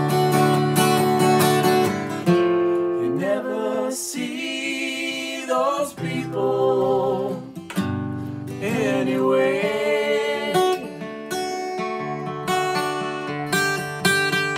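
Steel-string acoustic guitar picked, with a man and a woman singing two long phrases together, their notes wavering. The guitar carries on alone at the start and again after the second phrase.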